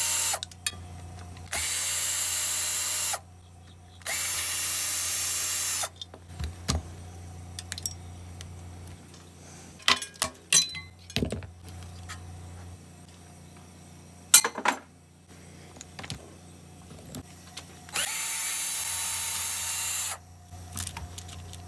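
Cordless drill spinning a socket to back out small bolts from a lawnmower engine. It runs in steady bursts of about two seconds, two of them close together early on and one near the end, with light clinks of metal parts being handled in the long gap between.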